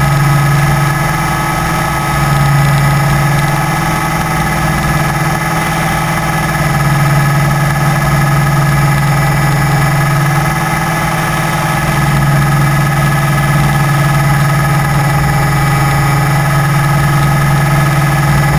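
Motor and propeller of an FPV model aircraft running steadily: a loud, even hum with a whining overtone, swelling slightly a few times.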